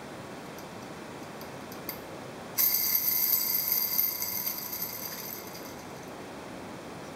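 Yamaha R1-Z crankshaft bearing spun by hand off the engine: a few light clicks, then a sudden jangling metallic ring that fades out over about three seconds. The bearing is loose, with play that the owner blames for the bad noise the engine made even at idle.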